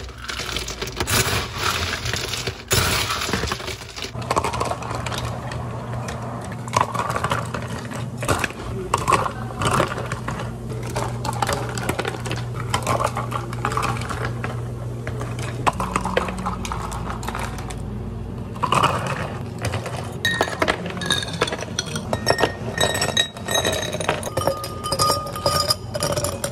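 Ice cubes clattering and clinking against glasses and cafe utensils while iced drinks are made, with ringing glass clinks toward the end. A steady low hum from cafe equipment runs under the first part.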